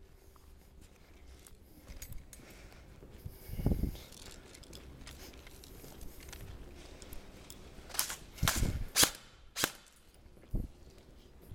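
A short string of airsoft gunshots: about five sharp cracks, most between eight and ten seconds in, with a dull thump near four seconds.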